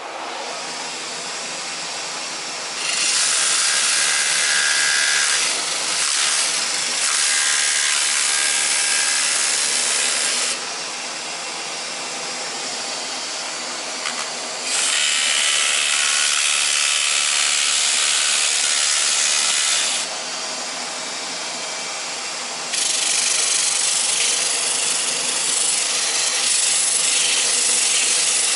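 Metal lathe running with a workpiece being cut as it spins: an even, rushing hiss over the machine's faint hum. The hiss grows loud for several seconds at a time, three times: a few seconds in, around the middle, and from about two-thirds through.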